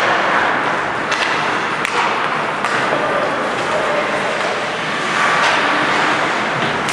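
Live ice hockey play in an indoor rink: a steady din of skates on the ice and the arena, with a few sharp clacks of sticks and puck about a second in, near two seconds and near three seconds.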